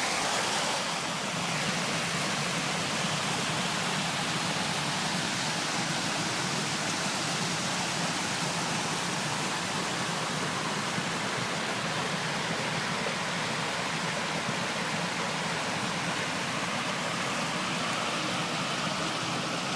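Mountain stream running into a pool, a steady rush of water.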